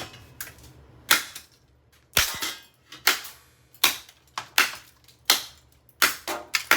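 A hammer smashing microwave parts: about ten sharp blows, roughly one every 0.7 s, coming closer together near the end.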